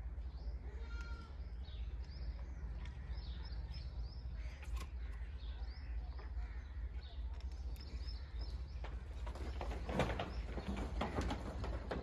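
Quiet farmyard background: scattered bird chirps over a low steady hum, with a few louder clicks and rustles near the end.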